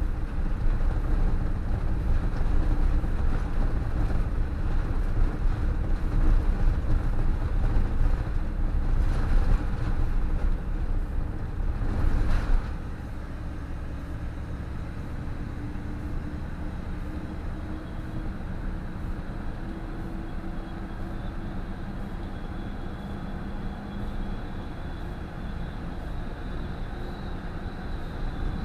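PAZ 32053-70 school bus running, a heavy low rumble that drops sharply about twelve seconds in to a quieter, steady running sound with a faint hum that slowly rises in pitch.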